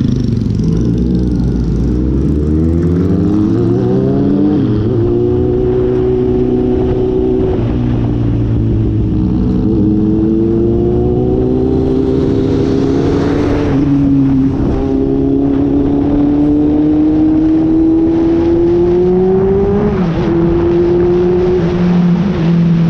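Four-cylinder ZX-8R sport motorcycle engine pulling up through the gears: the revs climb, drop at a shift, and climb again, with drops about 4.5, 14 and 20 seconds in. Heavy wind noise on the microphone runs underneath.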